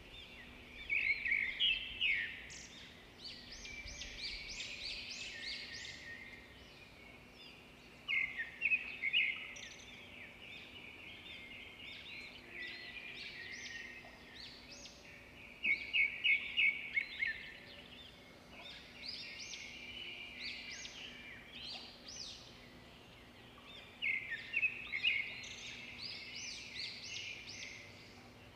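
Birds chirping and twittering: a burst of quick, high chirps about every eight seconds, with softer twittering in between.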